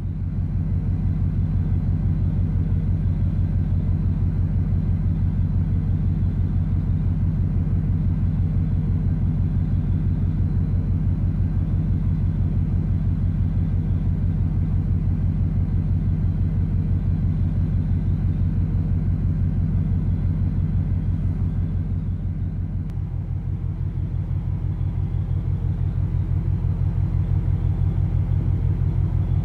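Steady low rumble of a container ship's engines heard on board, with a fast, even pulsing. The level dips slightly about two-thirds of the way through, then comes back.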